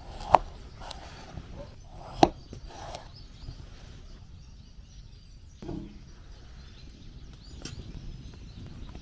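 Two sharp chopping blows about two seconds apart, with a duller thud later and a low steady outdoor background.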